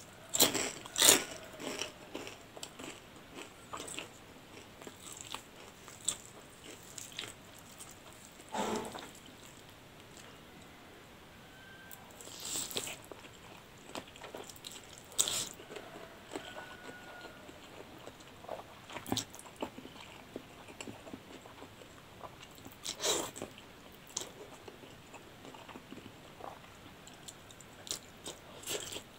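Eating sounds: crunchy bites into a crisp fried wonton, a cluster of sharp cracks in the first second or so, then scattered chewing clicks and mouth smacks, with a few short slurps of noodles.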